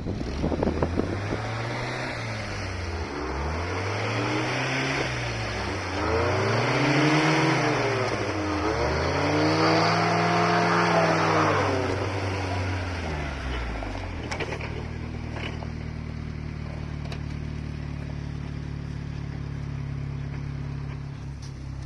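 UAZ Simbir engine revved four times in a row, each rev rising and falling in pitch, then settling to a steady idle about two-thirds of the way through.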